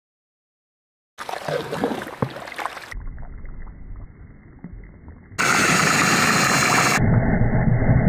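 Quicklime from burnt shells being slaked and stirred into lime putty: after about a second of silence, wet clicks and squelches of the thick slurry. A loud stretch of hiss follows, then a loud low churning as the grey slurry is mixed and splashes.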